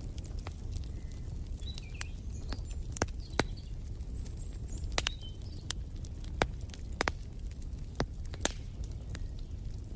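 Wood fire crackling, with sharp irregular pops and snaps over a steady low rumble of the burning logs. Faint bird chirps come in now and then behind it.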